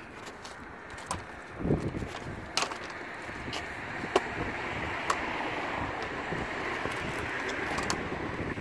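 A folding power wheelchair's metal frame being collapsed by hand: a run of sharp clicks and knocks from the joints and latches, with one low thud, over the first five seconds. A steady rushing noise rises from about four seconds in.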